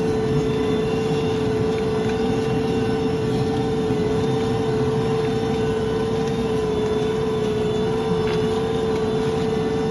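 John Deere tractor engine running steadily under load while pulling a plough, with a constant steady hum over a low rumble.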